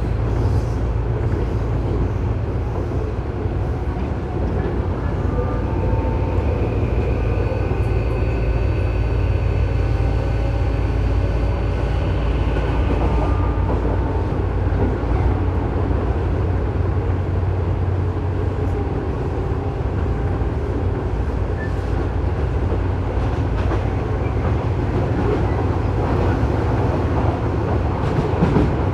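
Tobu 9000 series EMU running, heard from inside car MoHa 9204 directly above its armature chopper equipment: a steady rumble of wheels on rail. From about six to fourteen seconds in, several high-pitched chopper tones sound over the rumble. This car's chopper is the one that makes an abnormal noise.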